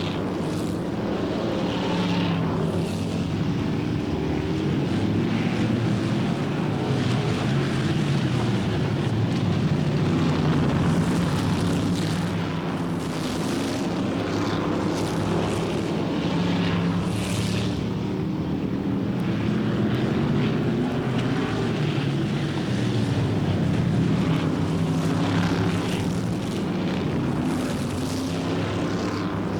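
A pack of stock cars racing on a short oval track, several engines running at once. Their pitches waver and overlap, and the sound swells and eases as the cars come around.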